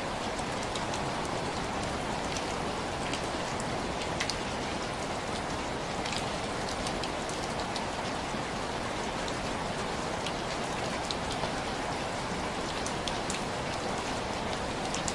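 Heavy rain falling steadily, an even hiss with scattered sharp ticks of individual drops or crackles.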